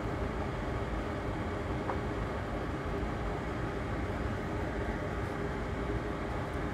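Steady mechanical whir and hum with no change in pitch, like a fan motor running on the workbench.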